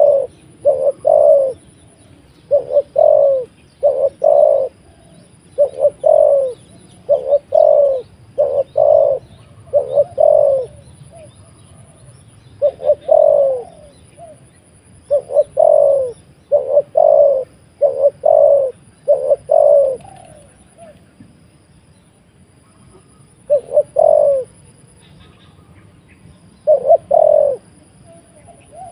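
A decoy dove cooing in repeated short phrases of about two to four low coos each. The phrases come steadily, stop for a few seconds past the middle, then return twice near the end.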